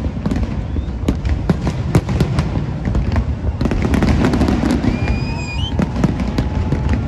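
Fireworks going off: a rapid, irregular string of sharp bangs and crackles over a steady low rumble, with a short whistling tone that rises briefly past the middle.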